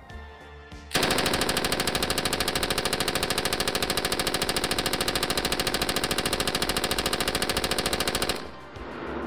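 M249 SAW light machine gun (5.56 mm) firing unsuppressed in one long continuous full-auto burst of evenly spaced shots, about a dozen a second. It starts about a second in, runs for roughly seven seconds and cuts off near the end.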